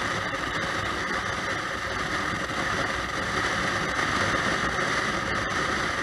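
Honda Shadow VT600 V-twin motorcycle riding along at road speed, heard from a helmet-mounted camera: a steady mix of engine, road and wind noise.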